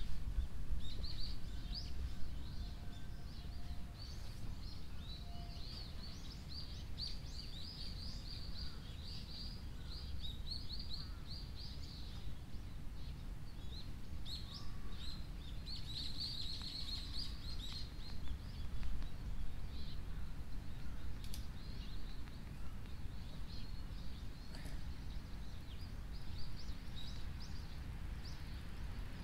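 Small birds chirping: a busy chatter of short high calls, thickest in the first half and thinning later, over a steady low outdoor rumble.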